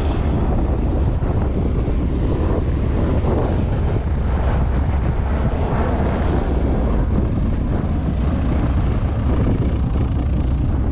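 Steady wind noise on the microphone, with the engine noise of aircraft on the airfield mixed in.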